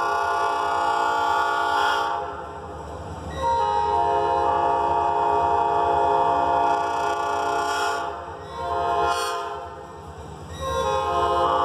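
Diesel locomotive's multi-chime air horn sounding the grade-crossing signal as the train approaches: a long blast ending about two seconds in, another long blast, a short one, then a final long blast beginning near the end.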